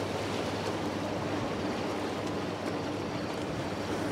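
Steady rushing outdoor noise with a faint steady hum, and no distinct firework bangs.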